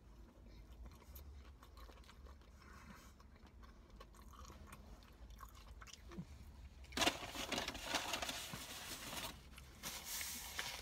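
Quiet chewing of a fish sandwich. About seven seconds in comes a louder rustle of paper lasting a couple of seconds, then another rustle near the end as a paper napkin is wiped across the mouth.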